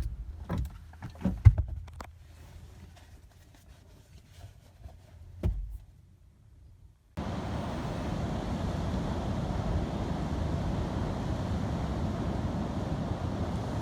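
A few scattered knocks and thumps. Then, after a short near-silent gap about seven seconds in, a steady rushing noise of wind and road takes over.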